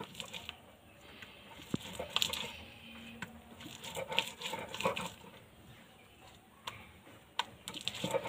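Stone roller (nora) grinding soaked urad dal on a shil grinding slab: irregular wet scraping strokes with an occasional knock of stone on stone.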